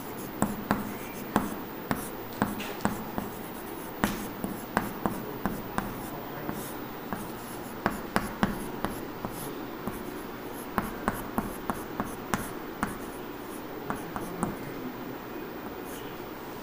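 Chalk writing on a blackboard: irregular clusters of sharp taps and short scratches as letters are written.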